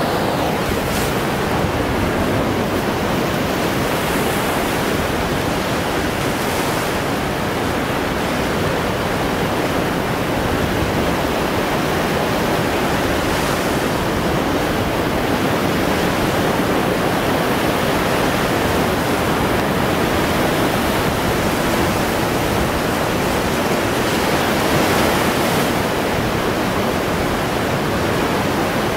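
Baltic Sea surf: waves breaking and washing in along the shore as a steady rushing noise, with a sharper hiss of breaking water now and then.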